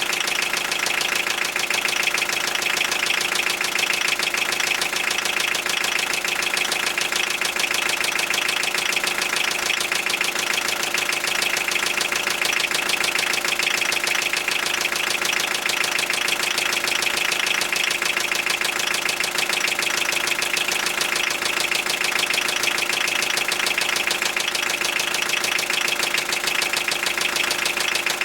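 Toyota 3C-TE four-cylinder turbodiesel engine running at a steady speed with a fast, even knock: the engine knock it is being checked for.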